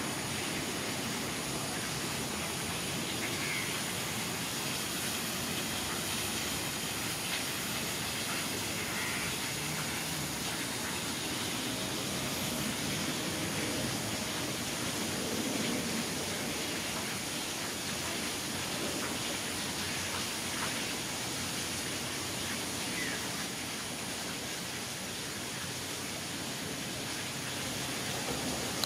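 Steady outdoor background hiss at an even level, with a few faint, brief high-pitched calls now and then.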